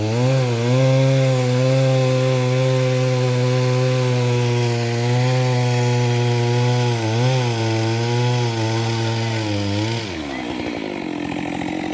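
Chainsaw running at high throttle through wood, its engine note holding steady with a couple of brief dips in pitch, then falling away about ten seconds in as the throttle is released.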